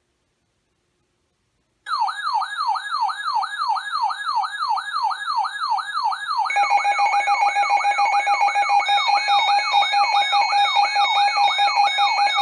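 An electronic siren-like alert starts about two seconds in: a wailing tone that sweeps down in pitch about two and a half times a second. About six and a half seconds in, a steady alert tone joins under the sweeps, and more steady tones are layered in later.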